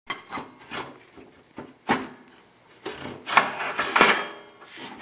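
Hand work on riding-mower parts: a series of sharp knocks and clinks, then a denser stretch of scraping and clatter about three seconds in.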